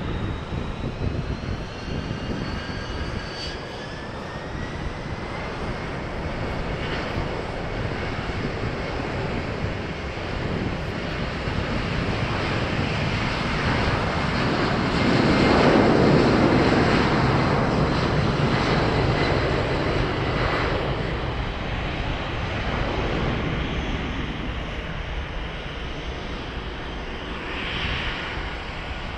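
Turbofan engines of a Boeing 767 freighter. A rising whine over the first few seconds as the engines spool up, then a loud jet roar that builds to a peak about halfway through and fades away.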